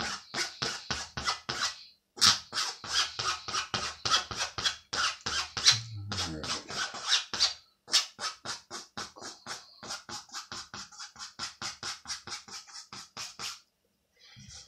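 Pencil lead scratching in quick, short back-and-forth strokes, about five a second, shading darker streaks into hair. There are two brief pauses, and the strokes stop about a second before the end.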